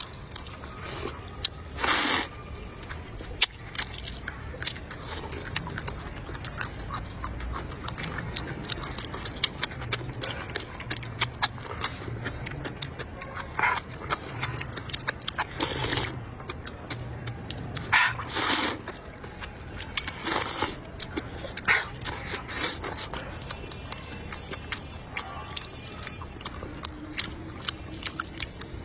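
Close-miked eating sounds: a person chewing and biting food, with many small clicks and a handful of short, louder noisy bursts.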